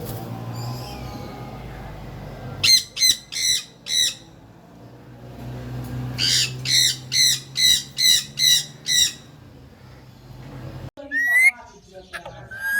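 Ring-necked parakeet squawking in loud, harsh, repeated calls: a quick run of four about three seconds in, then a run of about seven a few seconds later, with a couple of shorter calls near the end.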